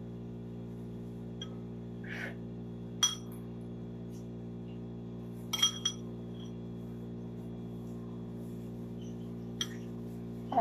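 A metal spoon clinking against a ceramic bowl while eating: about four sharp, ringing taps a few seconds apart, the loudest about 3 and 5.5 seconds in. A steady low hum runs underneath.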